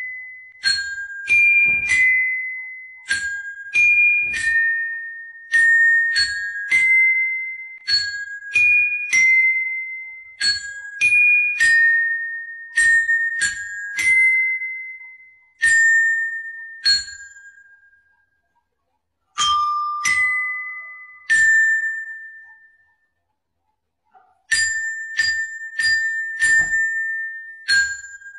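Background music: a slow melody of single high, bell-like struck notes, each ringing out and fading away. The melody pauses briefly twice in the second half.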